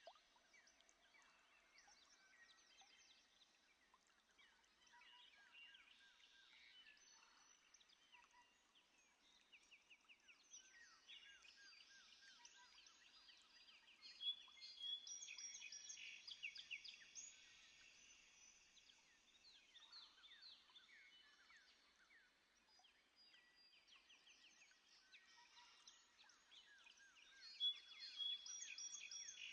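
Several birds singing and chirping at once, with rapid trills of short high notes, louder around the middle and again near the end.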